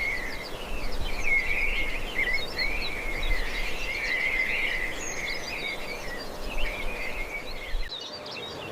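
Outdoor birdsong: many birds chirping and warbling at once, with short overlapping high calls, over a faint low rumble.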